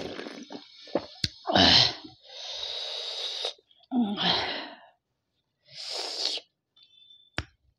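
Chicken soup sipped from a bowl, then a run of loud, breathy exhales and sighs, one after another, with a sharp click near the end.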